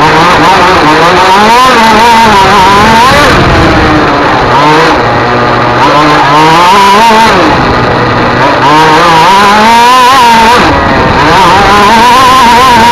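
Racing engine at full load, very loud, its pitch repeatedly climbing, dropping in quick steps through gear changes, and falling away as it lifts off.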